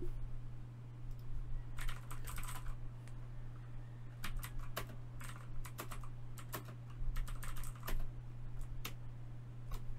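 Typing on a computer keyboard: a quick run of keystrokes about two seconds in, then scattered single key clicks, over a steady low hum.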